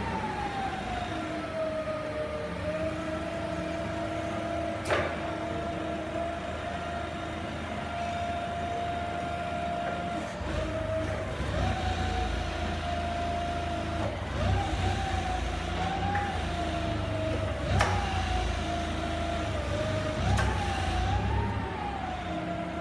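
Hyster S50FT propane forklift running, with a high whine that falls over the first couple of seconds, holds steady, then wavers up and down as the truck is worked, over a low engine rumble that grows from about ten seconds in. Two sharp knocks, about five seconds in and again near eighteen seconds.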